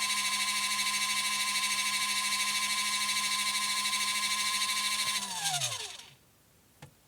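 Spin dryer of a 12 V portable foldable washing machine running with a steady electric motor whine, then winding down with a falling pitch about five seconds in until it stops. A faint click comes near the end.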